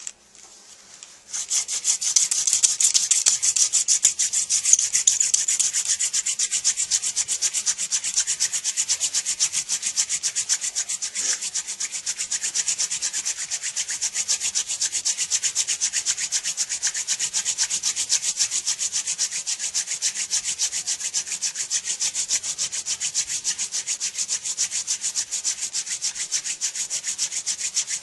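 Hand-drill friction fire: a wooden spindle spun back and forth between the palms, rubbing in a burned socket in a wooden fireboard. It starts about a second in and keeps up a fast, even rhythm of dry rubbing strokes.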